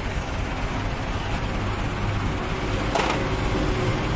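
Truck-mounted manlift's engine running steadily at idle, with a single sharp knock about three seconds in.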